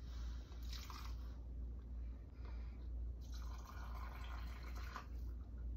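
Liquid poured slowly from a small saucepan through a plastic canning funnel into a jar packed with meat, a faint trickle and drip that comes in spells, strongest about a second in and again from about three to five seconds in.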